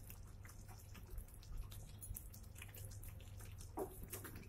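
Thick chicken curry gravy simmering faintly in a pan, with scattered soft pops and ticks over a low steady hum. Near the end a wooden spatula knocks once in the pan as stirring begins.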